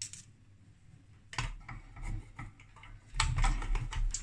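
Light metallic clicks, taps and knocks of screws and a tool being handled on the metal filter housing, in two clusters: one about a second in and a louder one near the end.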